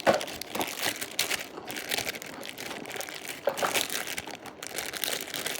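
Sticky slime being stretched and squished by hand, giving a run of irregular crackles, loudest just after the start.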